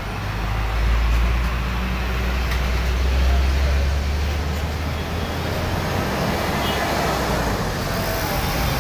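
Heavy diesel vehicles passing in street traffic: a low engine rumble from an Isuzu box truck and a Mercedes-Benz OH 1626 coach, swelling about a second in and fading near the end, as road and tyre noise rises with the coach passing close.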